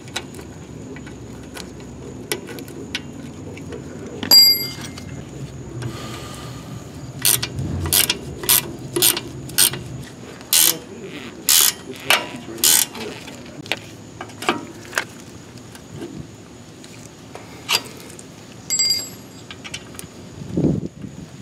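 Combination wrench and nuts clicking against the steel of the shock absorber's lower mount as its mounting nuts are tightened: a run of about a dozen sharp metal clicks in the middle, a ringing metal clink about four seconds in and another near the end, and a dull thump just before the end.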